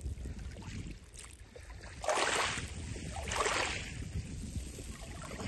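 Small waves washing in over a shingle beach of rounded pebbles: two surges of water, about two seconds in and again a second later, each swelling and fading. A low rumble of wind on the microphone runs underneath.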